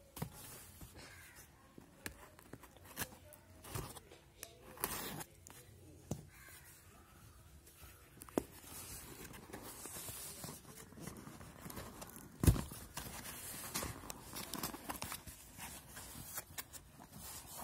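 Cardboard shipping box being handled and worked open by hand: scraping, rustling and tearing of cardboard and packing tape, with scattered sharp taps and one loud knock about twelve seconds in.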